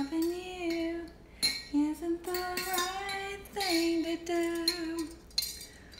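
A voice making several long, drawn-out pitched calls, each about a second, rising at the start and then held, with a few light clinks between them.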